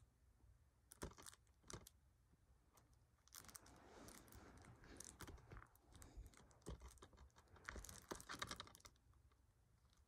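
A shrink-wrapped plastic DVD case being handled and turned over: a few light clicks in the first two seconds, then faint crinkling of the plastic wrap from about three to nine seconds in.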